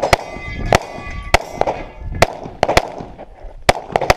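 Rapid pistol fire on a USPSA stage, about ten shots a fraction of a second apart, some in quick pairs. Steel targets ring after hits, most clearly after the first shot.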